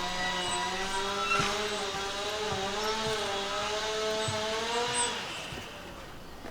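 A high-pitched, wavering mechanical whine with many overtones over a steady low hum, fading away about five seconds in.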